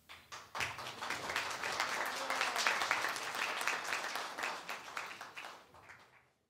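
Audience applauding: a dense patter of clapping that starts at once, holds for about five seconds, then thins out and stops near the end.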